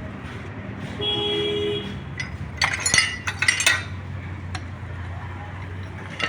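Metal motorcycle engine parts clinking and rattling against each other as they are handled, in a quick cluster of sharp clinks about two seconds in, then a few single clicks.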